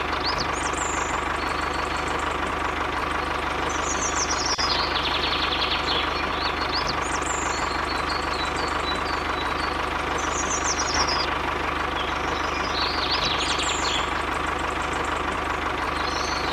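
Small motor of a DIY model tractor running steadily with an even hum, while birds chirp every few seconds.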